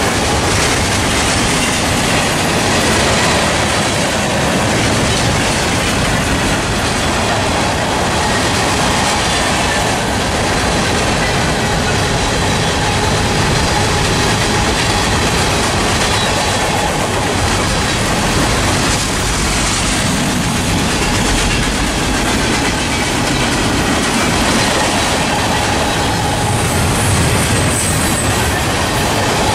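Freight cars of a long Norfolk Southern mixed freight train (tank cars and covered hoppers) rolling past close by: a loud, steady rumble and clatter of steel wheels on the rails.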